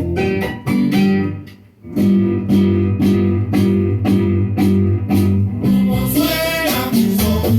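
Cuban son music: a repeating plucked-string and bass figure with a brief break about two seconds in, and a fuller, brighter ensemble sound coming in near the end.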